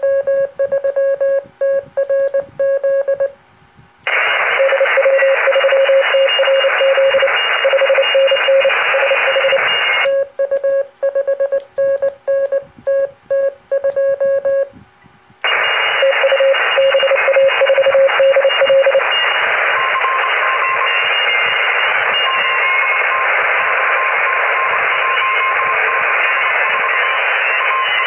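Morse code (CW) heard through a 40-metre amateur radio transceiver: a single tone keyed on and off, trading a contest exchange of callsigns and signal reports. Stretches of steady band hiss alternate with stretches where the tone sounds over a quiet background. A second, fainter, higher-pitched Morse tone joins in during the last part.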